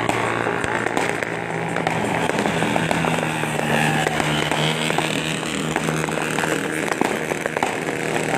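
Fireworks and firecrackers going off in many sharp pops and cracks, close together, over a steady low drone.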